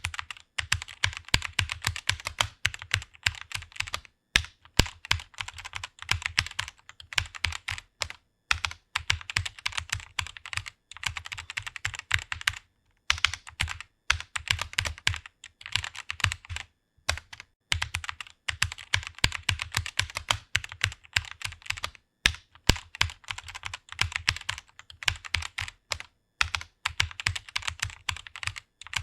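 Typing on a computer keyboard: rapid, continuous keystrokes broken by brief pauses every few seconds.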